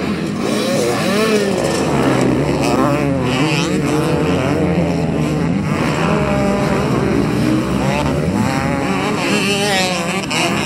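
Several motocross bike engines running, their pitch rising and falling as throttles are worked.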